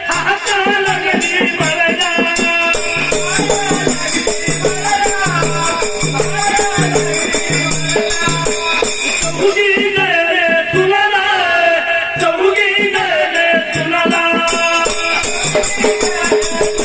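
Instrumental interlude of Dhangari ovi folk music: a melody that bends and slides in pitch over a steady drum beat, with constant jingling rattle and cymbal strokes.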